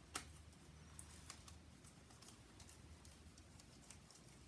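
Faint, scattered clicks and taps of small number cards being handled and sorted by hand, with one sharper click just after the start.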